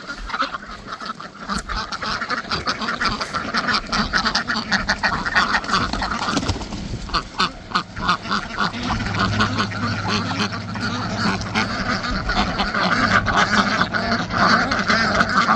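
A flock of domestic ducks quacking in a continuous, overlapping chatter that grows louder toward the end, as they are let out of their stall.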